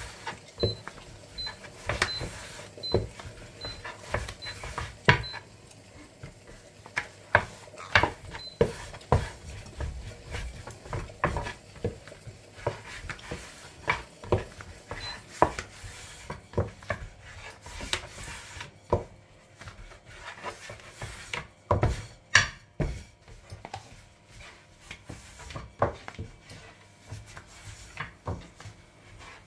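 Thin wooden rolling pin (oklava) rolling out yufka dough on a wooden board: an irregular run of wooden taps and knocks with soft rubbing.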